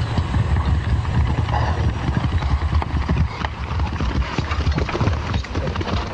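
A group of horses galloping, many hooves drumming fast and unevenly on hard ground.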